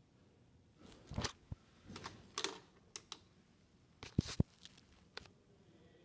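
A loose series of sharp clicks and short rustles, about a dozen scattered over four seconds, over a faint steady background.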